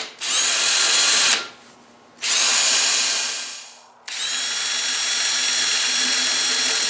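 Cordless drill boring a pilot hole for a sling swivel stud into a rifle stock with a home-ground pilot cutter. It goes in three runs: a short burst of about a second, a second burst that winds down slowly, then a steady longer run from about four seconds in.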